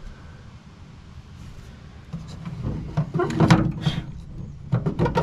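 Handling knocks and scrapes as a 7-pin trailer plug is fitted against the metal truck bed wall: a cluster of clatter about two to four seconds in, and another brief clatter near the end.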